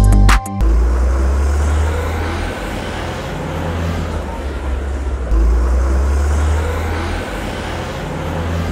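Road noise of a moving vehicle heard from on board: a steady low rumble with a hiss of tyres and wind. It follows a snatch of music that cuts off about half a second in.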